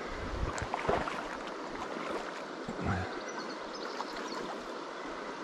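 River water flowing and rippling over a shallow stony run, with a few dull low thumps near the start and about three seconds in.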